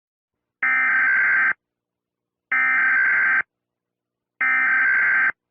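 Emergency Alert System digital data bursts: three harsh, buzzy bursts, each just under a second long and about a second apart. Coming right after the spoken message, they are the end-of-message code that closes the alert.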